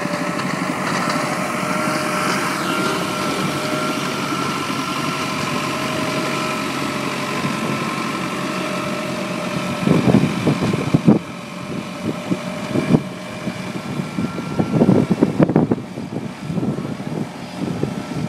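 Tracked snow groomer's engine running, steady with a held whine at first; about ten seconds in the sound turns uneven, with irregular louder surges.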